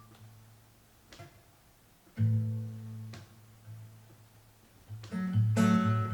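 Guitar playing a slow, sparse introduction: a few plucked notes and chords left to ring and fade, with soft plucks between them and a fuller, louder chord about five and a half seconds in.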